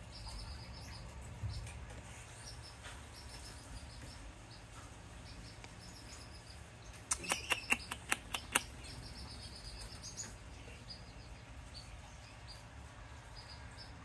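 A newborn canary chick peeping faintly, a thin high-pitched run of short begging notes that keeps repeating. A little past halfway comes a quick run of about eight louder, sharp sounds.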